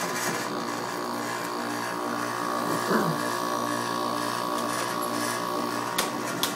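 Sharp AF06BML window air conditioner running, its compressor giving a steady buzzing hum, with a few sharp clicks about halfway through and near the end. The compressor's rubber isolation grommets are dry-rotted, so its vibration passes straight into the unit's frame.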